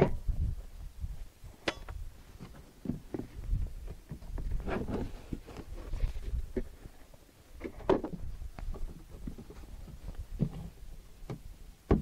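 Band-wheel covers being unlatched and lifted off a portable band sawmill: scattered knocks and clicks of the covers and latches over a low rumble.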